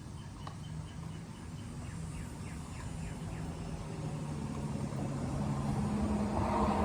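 A motor vehicle's engine, a low hum that grows steadily louder toward the end as it approaches.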